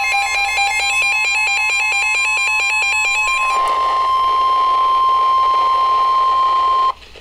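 Emergency Alert System tones from a weather alert broadcast. A rapid warbling digital header burst plays over a steady alert tone near 1 kHz. The data stops about three and a half seconds in, and the steady tone carries on alone until it cuts off suddenly near the end.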